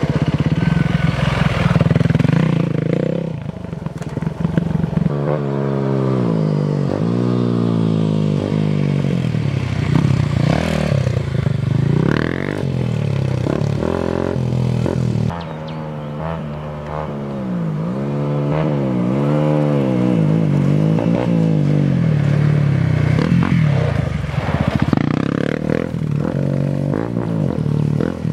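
Off-road motorcycle engines revving up and easing off again and again, the pitch climbing in repeated rises as the bikes accelerate along a dirt trail.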